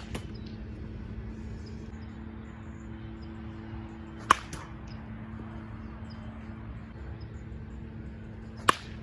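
Baseball bat hitting pitched balls during batting practice: two sharp cracks, one a little under halfway through and one near the end, the first followed by a fainter knock, over a steady low hum.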